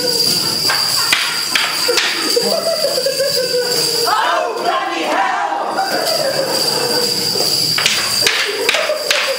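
Morris dancers' wooden sticks striking together, a few sharp clacks near the start and again near the end, over jingling bells and wavering voices.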